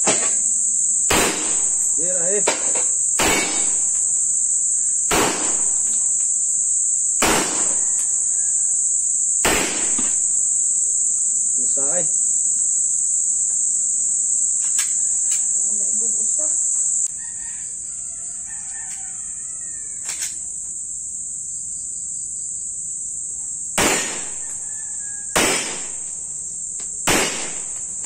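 Single pistol shots fired about one to two seconds apart, with a long pause in the middle and three more shots near the end, over a steady high-pitched drone of insects. A rooster crows a couple of times in the background in the first half.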